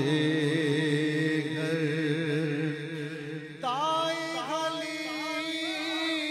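A man singing a naat in long, drawn-out melismatic phrases over a steady low drone. A new, higher phrase begins about three and a half seconds in.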